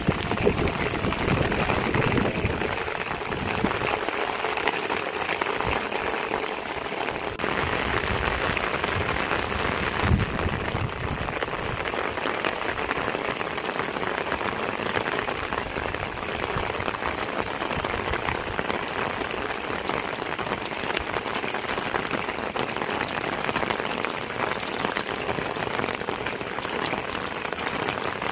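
Heavy rain falling steadily on roofs and muddy ground, a dense even hiss of drops. A single low thump about ten seconds in.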